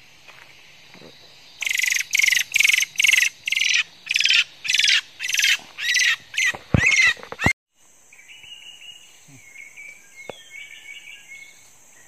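A bird close to the microphone gives about a dozen loud, harsh calls in quick succession, roughly two a second. They stop abruptly. After that come fainter chirping bird notes over a steady high insect buzz.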